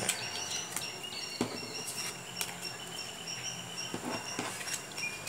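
Playing cards being handled against a wooden tabletop, giving a few soft clicks and taps as aces are slipped into the deck. High-pitched chirping runs through the background.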